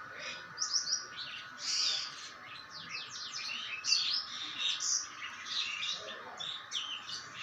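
Myna (shalik) calling: a rapid, varied run of short chattering notes, whistles and squawks, many notes a second, over a steady background hum.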